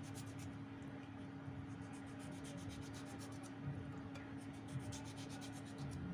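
Knife slicing a tomato into thin rings: soft rubbing cuts and faint quick clicks, over a steady low hum.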